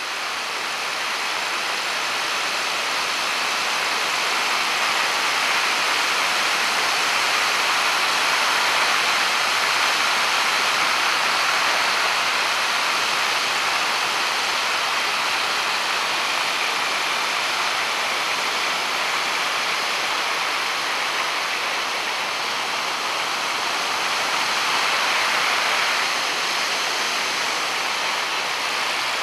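Steady rush of air over the camera microphone together with the engine and propeller of a motorized hang-glider trike in flight, fading in over the first few seconds.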